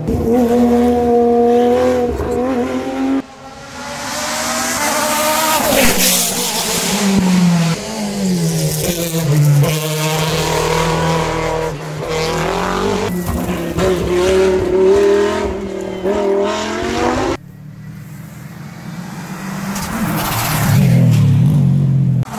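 Hill-climb race cars accelerating hard up a twisting mountain road, one after another. The engines rev high and drop back again and again through the gear changes, and the sound cuts off suddenly twice as one pass gives way to the next.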